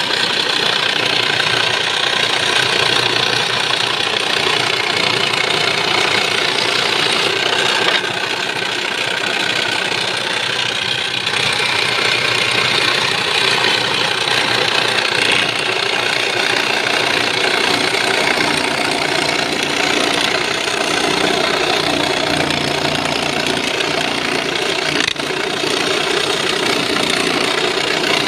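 Electric saw cutting a curve through a wooden board, running steadily with a brief dip in level about eight seconds in.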